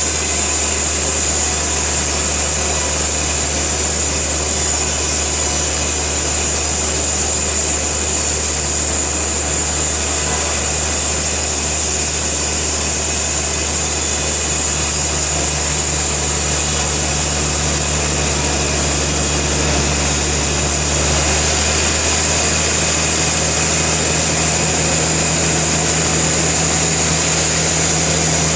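Sawmill machinery running steadily, a constant low hum with a high whine over it and no distinct cuts or impacts.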